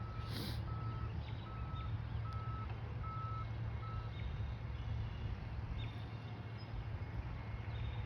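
Backup alarm on a reversing vehicle beeping six times, about one beep every 0.8 s, then stopping about four seconds in, over a steady low hum.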